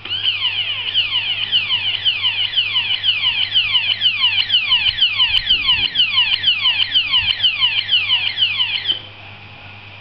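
Electronic warning alarm sounding a fast, even run of falling sweeps, about four a second, then stopping abruptly near the end: the warning of an iron's automatic power cut-off circuit.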